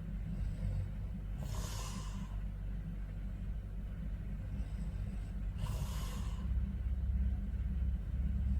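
A man snoring in his sleep: a low snore runs throughout, with a breathy out-breath about one and a half seconds in and another about four seconds later.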